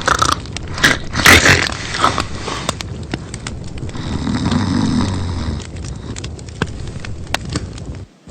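Loud snoring: several harsh snorts in the first two seconds, then one long, lower snore about four seconds in.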